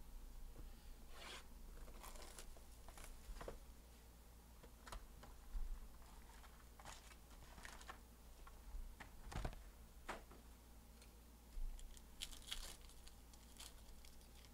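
Packaging of a trading-card hobby box being opened and its foil packs handled: a string of short, quiet tearing and crinkling sounds of wrapper and cardboard.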